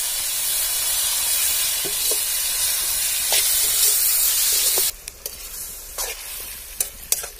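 Masala-coated goat intestine and onions sizzling loudly in an iron kadai while being stirred with a steel slotted ladle. About two-thirds through, the sizzle drops suddenly to a quieter hiss, with a few sharp clicks of the ladle against the pan.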